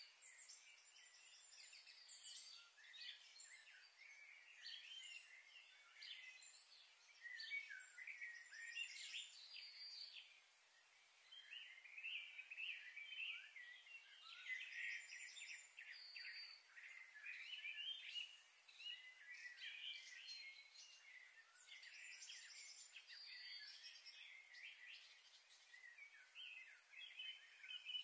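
Faint chirping and twittering of many small birds, dense and continuous, over a steady hiss.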